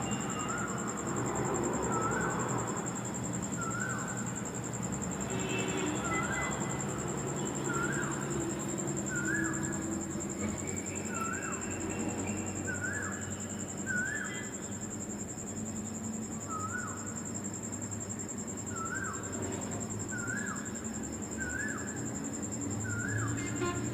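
A bird calling over and over, a short dipping-then-rising note repeated at uneven intervals of about one to one and a half seconds, with a steady high-pitched whine underneath.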